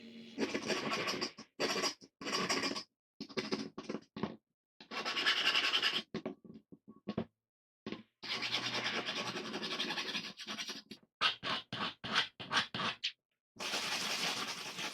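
Hand abrasive work on an old wooden plane: scraping and rubbing strokes in short runs, some quick and choppy and some lasting a second or so, broken by sudden gaps of complete silence.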